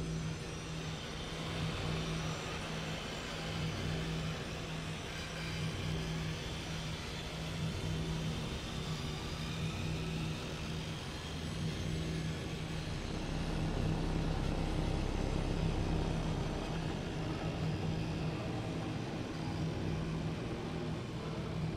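Live electronic drone-and-noise music played from a laptop and keyboard controllers: a steady low drone note under a dense wash of noise, swelling a little in level about halfway through.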